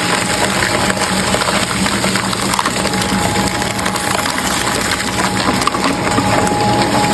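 Heavy shredding machine running under load, its motor humming steadily under continuous crunching and cracking as material is broken up; a thin steady whine grows stronger near the end.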